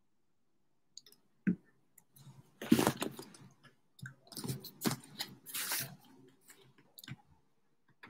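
A cardboard gift box being handled and shifted in the hands, rubbing and scraping in several short rustling bursts, with a sharp click about a second and a half in and a few small clicks near the end.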